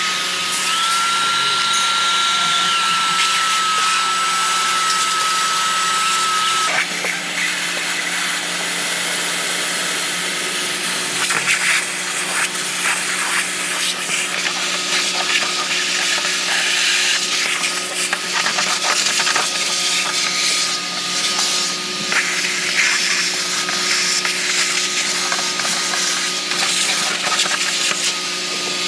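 Wet vacuum drawing standing floodwater off a car's bare steel floor pan through a hose nozzle. It runs with a steady high whine at first. About seven seconds in, this changes to uneven slurping and spattering as water is drawn in.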